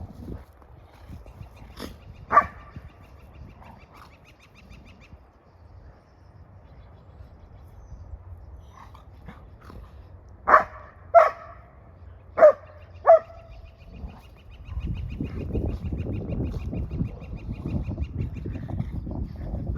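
Golden retrievers play-barking: one bark about two seconds in, then four sharp barks in quick succession around the middle. A faint high, rapidly pulsing trill sounds in the background twice. A louder low rumbling starts about three-quarters of the way through.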